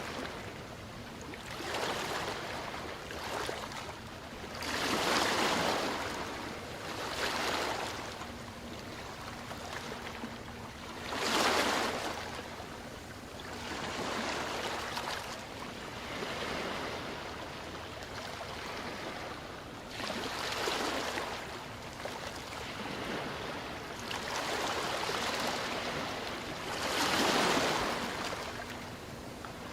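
Ocean waves breaking and washing in, a steady hiss of water that swells into a surge every few seconds. The biggest surges come about five seconds in, about eleven seconds in and near the end.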